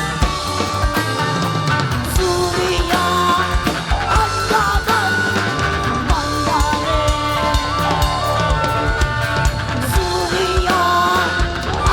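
Rock band playing live, with a regular drum kit beat under a melodic line that slides up and down in pitch.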